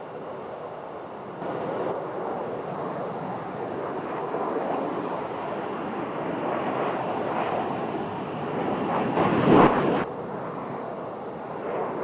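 Steady rushing noise of a jet aircraft, with wind buffeting the microphone. The noise swells briefly about nine seconds in, with a sharp click at its peak.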